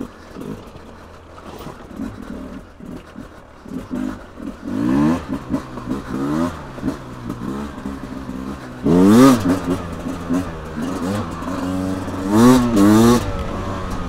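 Beta RR 300 two-stroke single-cylinder enduro engine under the rider's throttle, revving up in short sharp surges and dropping back. It runs low for the first few seconds, rises about five seconds in, gives its loudest rev about nine seconds in, and revs twice more near the end.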